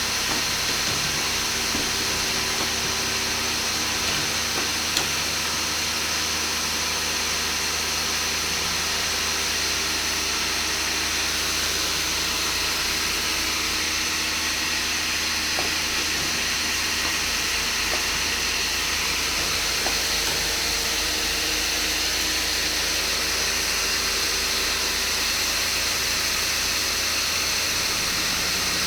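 Nail coil welding machine running steadily: an even mechanical hiss with a constant hum underneath, and a faint click or two.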